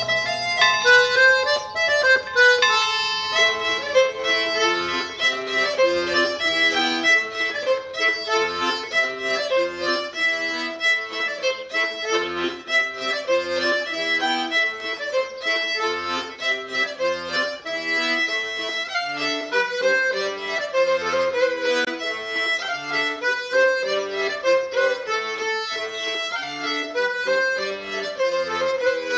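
Instrumental Breton dance music, an accordion-led tune with fiddle, played over regular low bass notes.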